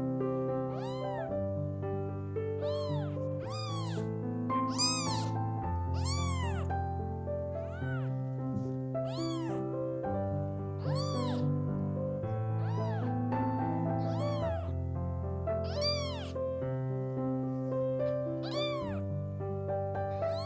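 Very young kitten meowing over and over, about once a second, each cry rising and then falling in pitch: a left-behind kitten's distress calls for its mother. Background music with held chords plays underneath.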